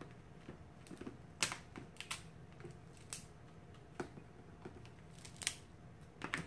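Cooked crab legs being snapped and cracked apart by hand: irregular sharp cracks and clicks of breaking shell, roughly one every second, the loudest about a second and a half in.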